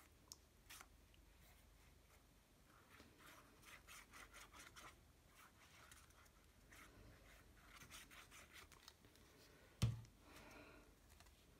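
Faint rubbing and scraping of card and a plastic squeeze glue bottle being handled, with small clicks, and one sharp knock near the end.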